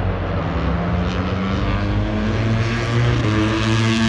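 Racing motorcycle engines running at high revs on the circuit, a steady loud drone whose pitch shifts and climbs slightly about three seconds in.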